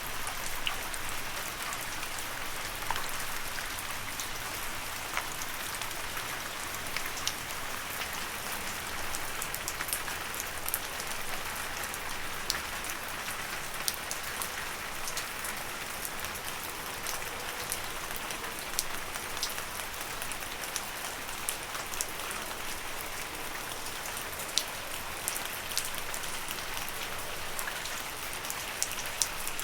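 Steady rain falling on leaves, an even hiss with many distinct drop ticks scattered through it.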